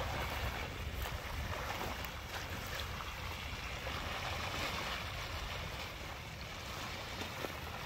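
Spring meltwater rushing steadily through a breach in a dam, with a low rumble underneath.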